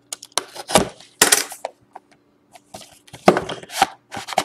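A utility knife slicing the seal tag of a cardboard trading-card box, then the box's cardboard lid pulled open. The result is a run of short cutting and tearing noises in two bunches, one at the start and one past halfway.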